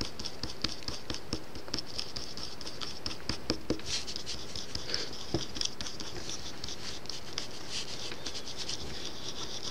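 A metal needle tool stirring liquid polymer clay and acrylic paint in a small plastic tray: quick, irregular light clicks and scrapes against the plastic.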